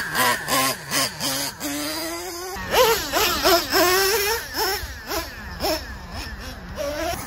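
Small nitro-fuelled two-stroke engine of an RC monster truck revving hard, its high whining pitch rising and falling again and again as the throttle is worked. There is an abrupt jump in the sound a little over halfway through.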